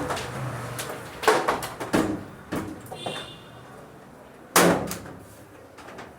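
A handful of sharp knocks and thuds in a household, like a door or cupboard being shut and things set down, with the loudest bang about four and a half seconds in and a brief high squeak near the middle.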